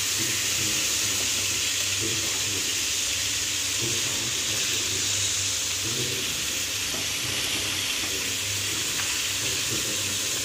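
Chicken pieces frying in hot oil in a pan: a steady sizzling hiss.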